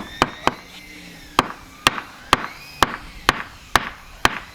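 Hammer blows knocking the rebuilt rudder mount up into position in the rudder shaft: three quick blows, then a steady run of knocks about two a second.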